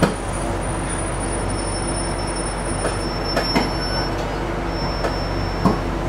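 Steady running hum of a KiHa 220 series single-car diesel railcar, heard from its cab as it creeps along a station platform to a stop. A few short, sharp knocks come through: one at the start, two close together about halfway, and one near the end.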